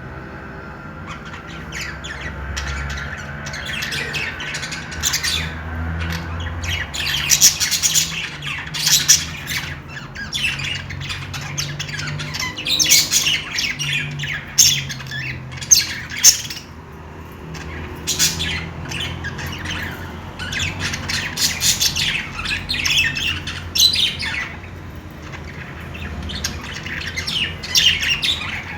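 A flock of budgerigars chirping and squawking in quick bursts that come in busy clusters with short lulls, over a steady low hum.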